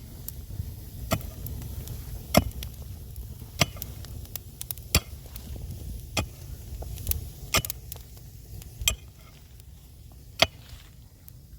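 Repeated sharp knocks, about one every second and a quarter, over a steady low rumble.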